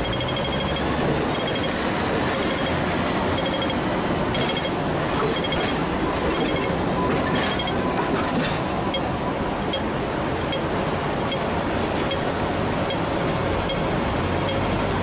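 Hong Kong double-deck electric tram passing close by over steady street-traffic noise, its wheels clattering briefly on the rails. A high electronic ticking repeats throughout, in short quick groups at first and then as single ticks about three every two seconds, typical of a Hong Kong pedestrian crossing's audible signal.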